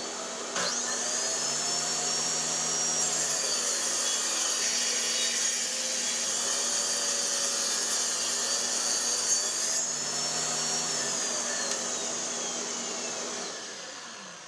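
Ridgid R4513 jobsite table saw's direct-drive motor whining up to speed, then ripping a pine board lengthwise. After the cut the saw is switched off and its whine falls steadily in pitch as the blade spins down.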